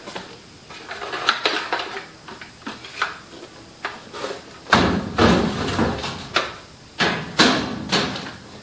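Plastic clicks and knocks as a K&H brooder heat plate's legs are handled. About five seconds in comes a loud thump with rattling as the plate is set down in a galvanized steel tub. Two more sharp knocks follow near the end.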